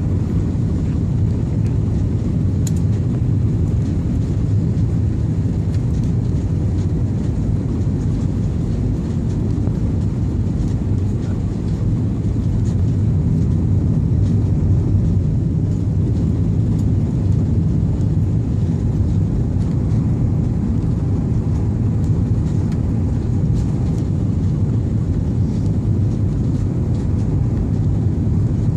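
Airliner cabin noise: a steady low rumble of the engines and rushing air, with faint scattered ticks.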